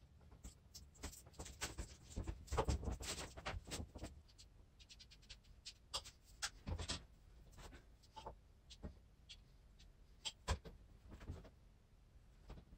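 Light handling noises of PVC pipe and fittings: scattered small taps, clicks and scrapes, busiest in the first few seconds, then sparse single clicks.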